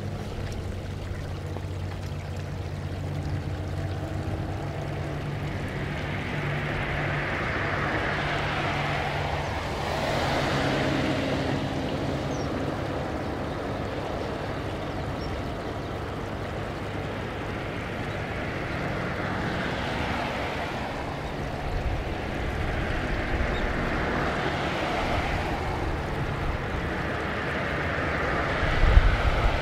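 Jet engines of a taxiing Boeing 787 airliner, its Rolls-Royce Trent 1000 turbofans at low taxi power: a steady rushing noise that swells and fades several times, with a few low thumps near the end.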